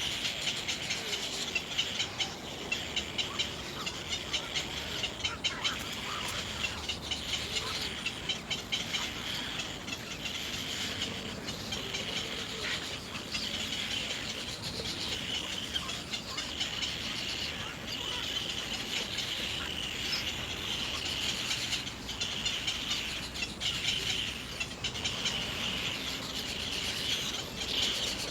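Birds chirping over a steady high-pitched hum, with frequent short ticks.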